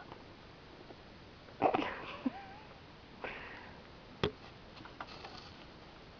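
Two short sniffs of breath through the nose, about one and a half and three seconds in, then a single sharp click just after four seconds.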